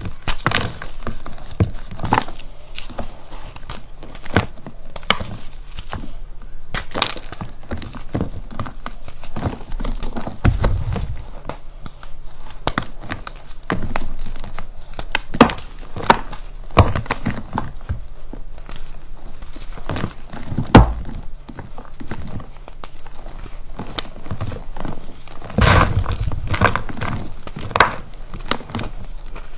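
Reformed gym chalk crumbled and crushed by hand over a pile of broken chalk: continuous gritty crunching with frequent sharp cracks, and a few dull thuds as chunks drop onto the pile.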